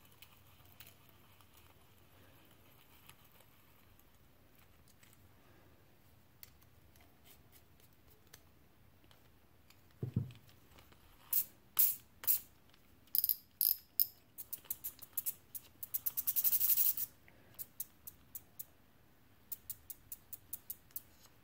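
Small plastic-and-metal clicks from a Zebco 11 micro spincast reel being reassembled and cranked. After a stretch of faint handling, a knock comes about ten seconds in, then a series of sharp clicks and a fast run of ticking for about two seconds, then scattered clicks near the end.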